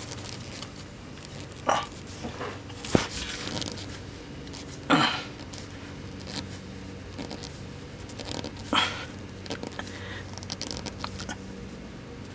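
Scattered short scrapes and knocks of a new spin-on oil filter being turned by hand onto its mount under a pickup truck, a handful of separate noises over a low steady background.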